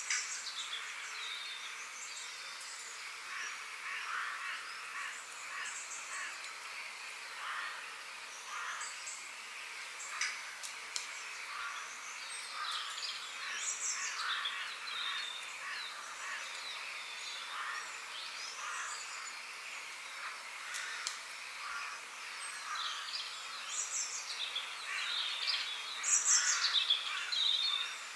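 Forest birdsong: many birds chirping and calling at once, short overlapping chirps and warbles over a steady high hiss, with a louder cluster of calls near the end.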